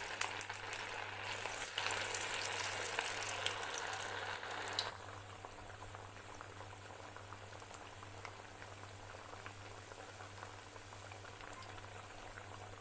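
Breaded cutlets deep-frying in hot oil in a kadai, just after being put in: a dense sizzling and crackling of bubbling oil that drops abruptly to a quieter, softer sizzle about five seconds in.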